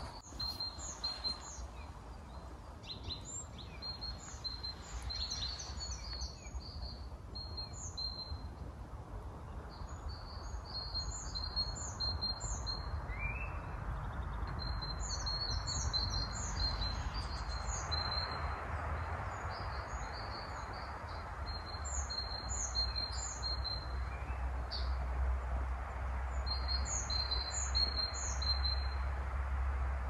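Small songbirds chirping in short, high, quick phrases, over a steady background rush.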